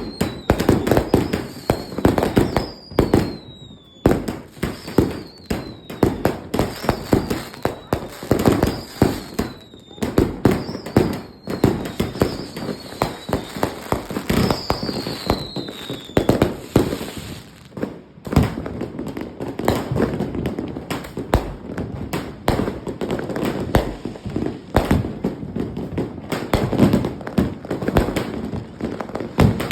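Fireworks finale going off: a dense run of sharp bangs and reports. Through the first half or more, a falling whistle repeats about every second and a half.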